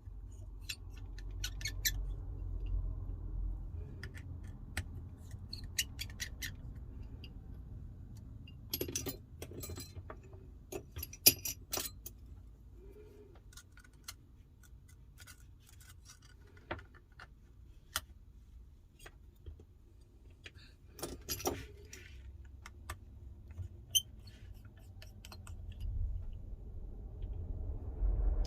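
Small metal clicks and ticks of a tri-point screwdriver and tiny screws being worked out of an iPhone 12, scattered through, with two busier runs of clicking about nine to twelve seconds in and again around twenty-one seconds in, over a faint low rumble.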